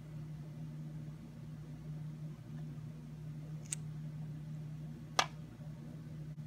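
A tiny plastic miniature dish clicks sharply as it is set down on a plastic toy table, after a lighter tick from handling about a second and a half earlier. A steady low hum runs underneath.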